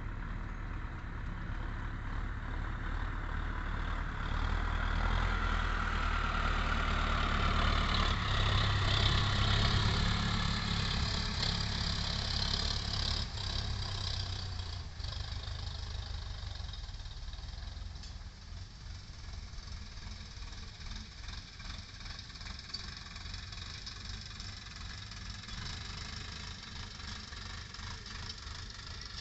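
Sonalika DI 750 III Sikandar tractor's diesel engine working under load as it drags a rear leveller blade full of soil, in second high gear. It grows louder as the tractor comes close, loudest about a third of the way in, then fades as it moves away.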